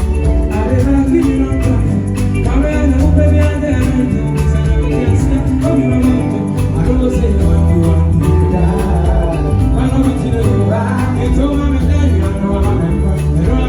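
Live band playing an upbeat groove with a steady beat, heavy bass and shaken percussion.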